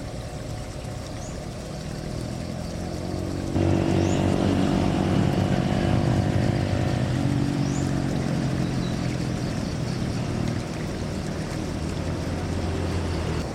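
Engine noise from the airport apron: a steady low rumble with a droning hum. It jumps louder about three and a half seconds in and eases off again in the second half.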